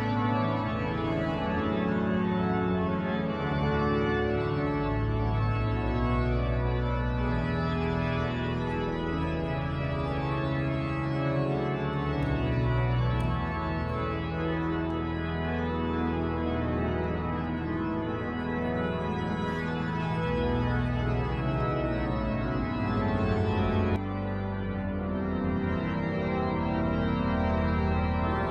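York Minster's grand pipe organ, newly rebuilt and revoiced, played in full sustained chords over deep pedal notes. The sound changes suddenly about four-fifths of the way through.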